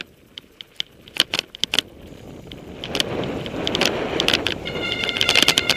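Mountain bike rattling and clicking over a rough downhill trail, heard from a helmet camera, with a rush of wind and tyre noise that grows louder about halfway through. Near the end a steady high-pitched whine joins in.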